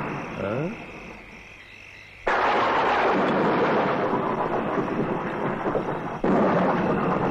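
Thunder on a film soundtrack: a sudden crash a little over two seconds in, then steady storm noise, and a second crash near the end. A short rising tone comes shortly before the first crash.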